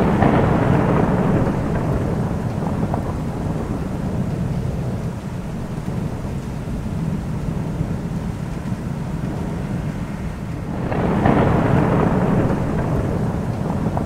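Thunderstorm: steady rain under rolling thunder, with a long roll at the start and a second swelling about eleven seconds in.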